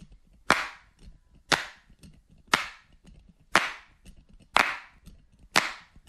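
Six sharp clap-like hits, evenly spaced about a second apart, each fading out quickly.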